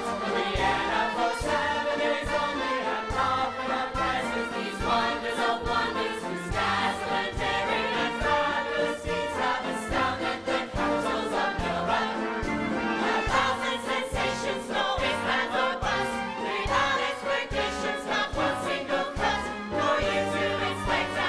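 Musical theatre number: an ensemble singing together over a band accompaniment with a steady beat in the bass.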